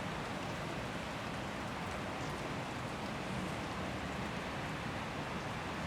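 City street ambience: a steady, even wash of noise with no single sound standing out.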